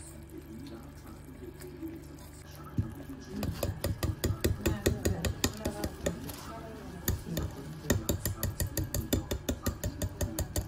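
Wire balloon whisk beating a thick flour-and-water dough in a stainless steel bowl: quick rhythmic strokes with the tines clicking and scraping against the bowl, about five a second. The whisking starts about three seconds in and pauses briefly in the middle.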